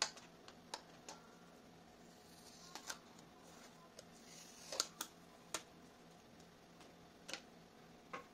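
Faint handling clicks and crackly rustles from a plastic screen-protector alignment tray as its paper pull tab is gripped and peeled away. The sharpest click comes right at the start, with a small cluster of crackles about five seconds in.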